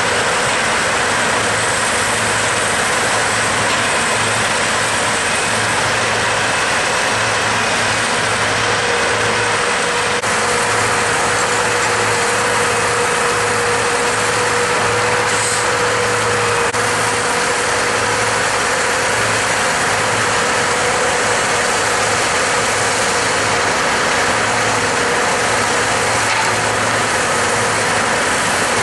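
Logging truck's diesel engine running steadily, with a constant drone and a faint steady whine over it.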